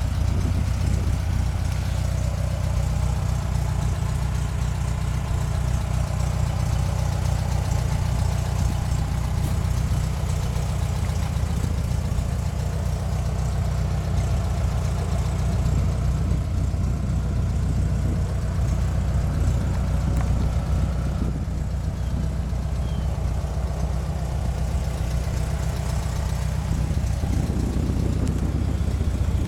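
A Volkswagen 1600 cc air-cooled flat-four engine idling steadily, an even low hum that does not change.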